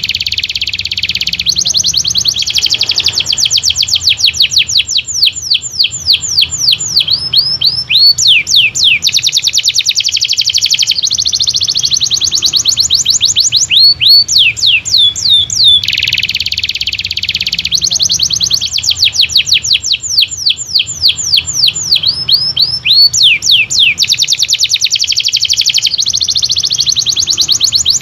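Domestic canary singing vigorously: long, unbroken phrases of fast, repeated downward-sweeping whistled notes, some runs packed into dense rolling trills.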